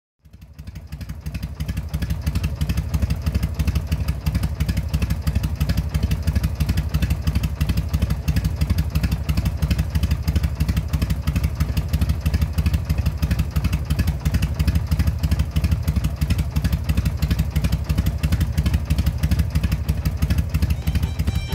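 Motorcycle engine running steadily with a rapid, even pulse, fading in over the first two seconds.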